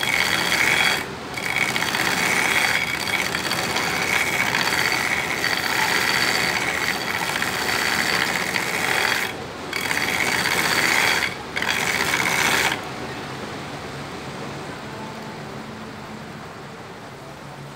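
Steel knife blade being ground on a belt grinder's abrasive belt to put a distal taper on it: a loud, steady grinding with three brief breaks. The grinding stops about 13 seconds in, leaving the machine running on more quietly.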